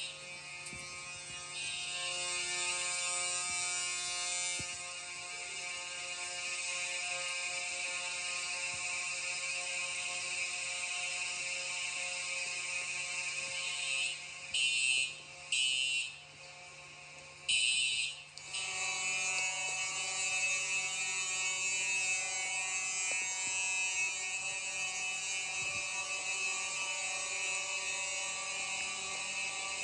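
Fire alarm sounding continuously with a steady, many-toned buzzing ring during a system walk test. Three short separate blasts come near the middle, and after them a louder, fuller alarm sound carries on.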